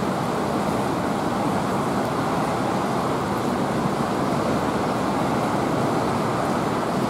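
Steady rushing of water flowing and churning through a fish-hatchery rearing tank.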